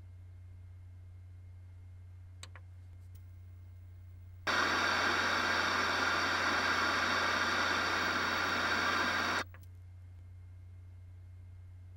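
A low steady hum throughout. About four seconds in, loud television static hisses for about five seconds, then cuts off abruptly.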